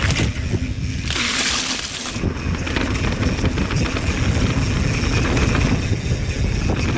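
Wind rushing over the action-camera microphone while a mountain bike's knobby Maxxis Minion tyres roll over a muddy dirt trail on a descent, with a steady low rumble. A brighter hiss comes through from about one to two seconds in.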